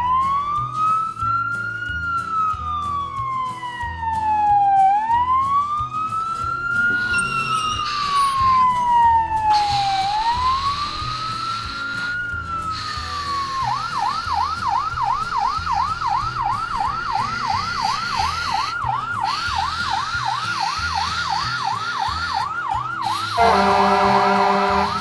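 Emergency vehicle siren wailing in slow rising-and-falling sweeps, then switching to a fast yelp at about three cycles a second; near the end a short, loud, steady horn-like blare. A low music beat runs underneath.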